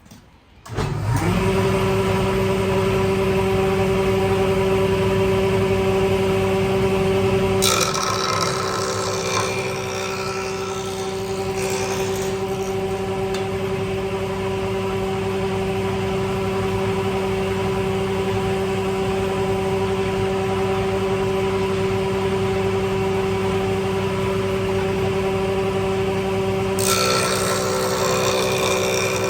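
An electric power tool's motor spins up about a second in with a rising hum, then runs steadily. Twice a harsher hiss joins the hum, about eight seconds in for a few seconds and again near the end.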